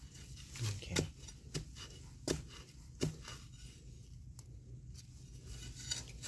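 Dry leaf litter crackling in a few sharp, separate snaps, about one every half second to a second, as someone moves and handles things on the forest floor. The snaps thin out about halfway through and return near the end.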